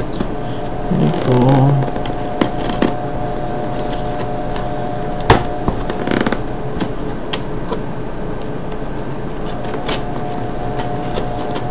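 Hands working open a tight cardboard camera box: scattered clicks, taps and scrapes of the cardboard flaps and packaging, the sharpest snap about five seconds in, over a steady background hum.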